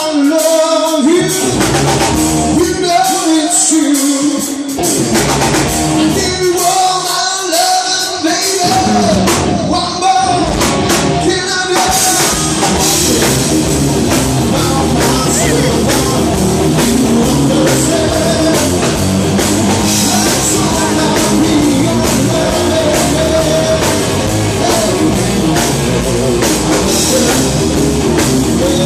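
Live rock band playing with male lead vocals over electric guitars, bass and drums. For the first dozen seconds the low end drops out between sung lines, then the full band plays on steadily.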